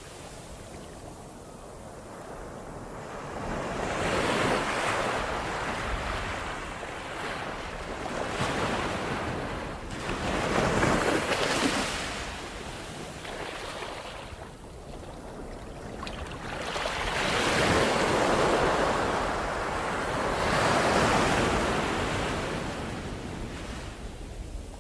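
Ocean waves breaking and washing on the shore in slow swells, each surge rising and fading over a few seconds, with some wind.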